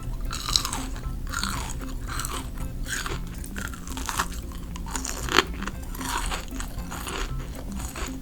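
Close-up biting and chewing of kohakuto, the crisp sugar crust of the jelly candy crunching in a run of crisp crunches, the sharpest about five seconds in.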